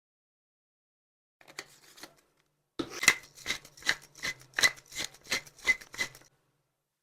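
Hand-worked food preparation in the kitchen: a short rustle, then a steady run of about nine sharp strokes, a little over two a second, that stops suddenly.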